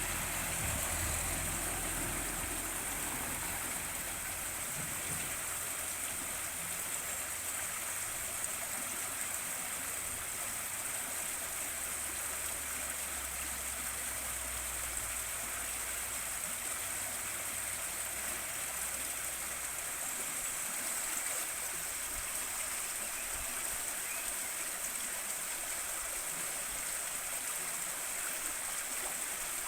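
River water flowing steadily, a constant rushing hiss of water running over stones.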